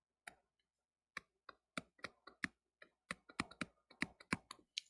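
Stylus tip tapping and clicking on a touchscreen during handwriting: a faint, irregular run of short sharp clicks that grows busier about three seconds in.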